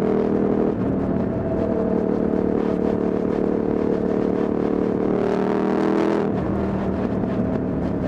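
KTM 990 Supermoto's V-twin engine through a LeoVince SBK aftermarket silencer, pulling at fairly steady revs while riding. There is a brief break about a second in, like a gear change, and the note drops lower about six seconds in as the throttle comes off.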